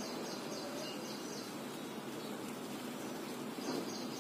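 Small birds chirping in quick high twittering runs at the start and again near the end, over a steady faint background hiss.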